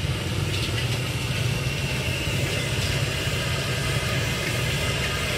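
A steady low engine-like rumble runs without a break.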